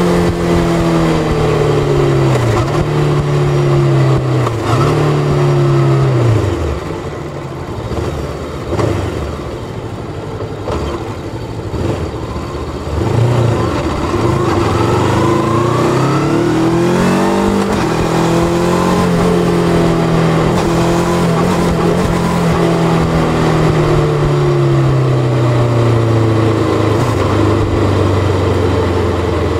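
Bristol Venturi 500 motorcycle engine under way. It revs up through the gears, with the pitch dropping back at each upshift, then eases off for several seconds before accelerating again and settling into a steady cruise that slowly falls near the end.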